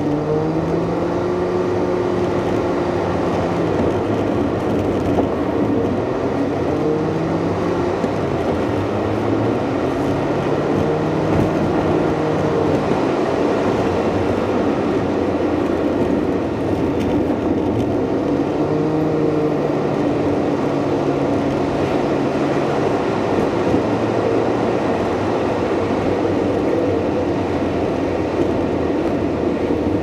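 Car engine and road noise heard from inside the moving car. The engine pitch rises as it accelerates near the start and again about halfway through, holding steady between.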